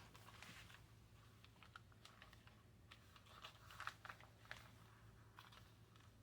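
Near silence with faint scattered small clicks and rustles of paper and journal pages being handled, the soft handling of binding a journal by hand.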